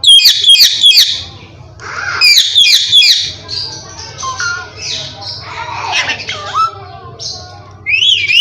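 Indian ringneck parakeet squawking: a rapid run of shrill calls at the start and another about two seconds in, then softer, varied chattering calls, and a rising call near the end.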